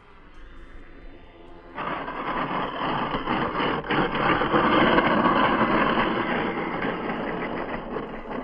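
Small foam RC airliner touching down on a rough concrete strip: its twin small electric motors run and the foam body scrapes and slides along the surface. The noise starts suddenly about two seconds in and eases off slowly toward the end.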